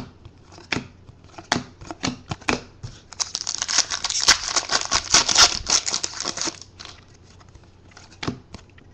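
Foil wrapper of a 2013 Elite football card pack being torn open and crinkled for about three seconds, starting about three seconds in. Before and after it, sharp clicks of cards being flipped and snapped against each other.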